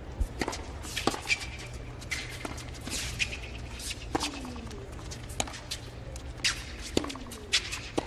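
Tennis rally on a hard court: sharp pops of racket strings striking the ball and the ball bouncing, every second or so, with short shoe squeaks over a low, steady hum of the arena crowd.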